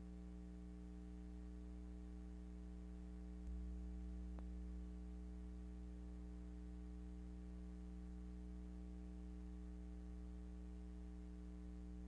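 Steady mains hum with faint hiss from the playback chain in the silent gap between tracks of a record. The low hum swells slightly about three and a half seconds in, then settles.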